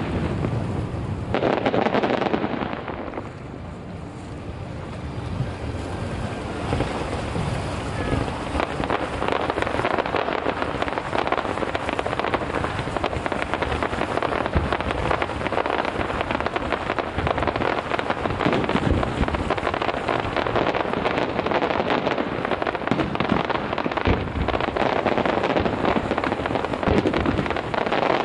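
Fireworks display: heavy bursts in the first couple of seconds, a short lull, then a dense, continuous crackle of many small reports.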